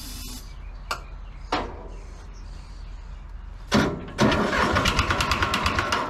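John Deere 310 backhoe's diesel engine catching on starting fluid. A clunk comes near the four-second mark, then about two seconds of rapid, rough-sounding firing that dies away. The engine has long sat unused, has worn piston rings, and has had heavy oil poured into its cylinders to help compression.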